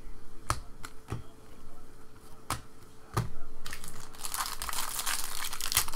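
Trading cards being flipped through by hand, with a few soft clicks as cards slide off the stack. From a little past halfway, a foil card-pack wrapper crinkles continuously as it is handled.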